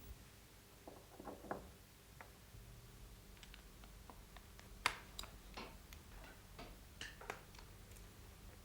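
Faint, irregular clicks and light taps over a low steady hum, the sharpest tap about five seconds in.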